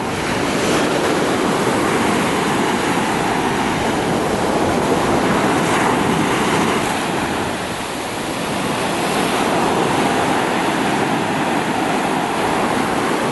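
Sea waves washing onto the beach, a steady rushing surf that dips briefly about eight seconds in and then swells again.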